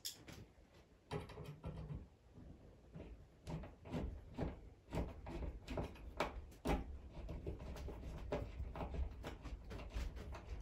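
Hand screwdriver driving a screw through a steel light-fitting bracket into the ceiling, with irregular clicks and knocks as the screw turns and the hand regrips.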